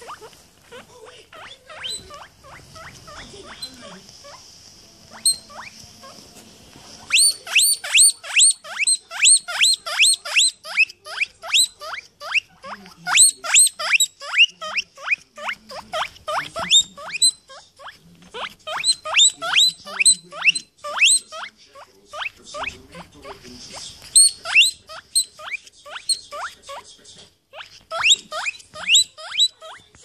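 Guinea pig wheeking: a long series of short, shrill, rising whistles, about two or three a second. They are faint for the first several seconds, then loud.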